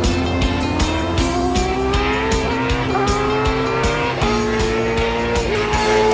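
Suzuki GSX-S1000 GT's inline-four engine accelerating through the gears: its pitch climbs and drops back three times as it shifts up. Background music with a steady beat plays underneath.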